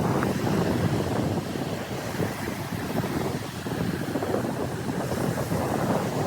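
Ocean surf washing on a beach, with wind rumbling on the microphone.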